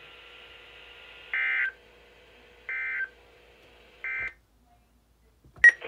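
Emergency Alert System end-of-message data tones: three short, identical bursts about 1.3 s apart over a faint radio hiss and hum, marking the end of the alert. A sharp click comes near the end.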